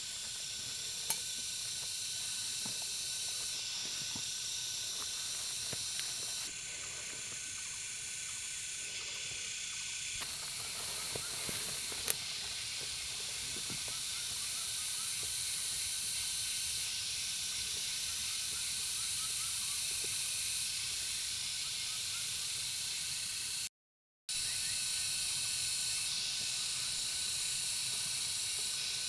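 Steady high-pitched insect chorus, with a couple of sharp clicks about a second in and about twelve seconds in.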